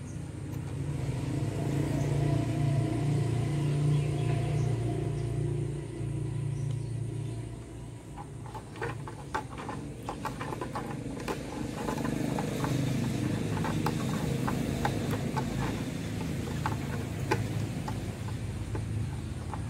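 Steady low rumble of an engine running, swelling over the first few seconds and easing off about eight seconds in, with scattered sharp clicks and taps through the second half.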